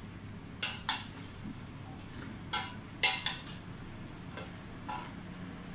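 Wooden spatula stirring chicken wings and papaya chunks in a stainless steel pot, knocking and scraping against the pot about six times; the loudest knock comes about three seconds in.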